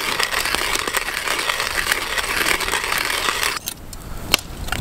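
Manual hand-crank coffee grinder on a clip-top glass jar grinding roasted coffee beans: a steady gritty crunching that stops suddenly about three and a half seconds in. A single sharp click follows near the end.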